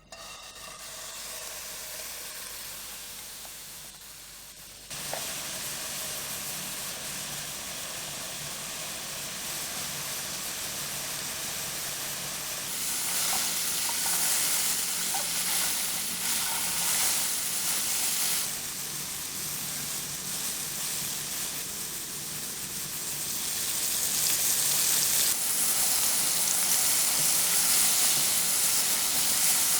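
Food sizzling in hot oil in a pan: a steady frying hiss that jumps louder suddenly about five seconds in and swells louder twice later on.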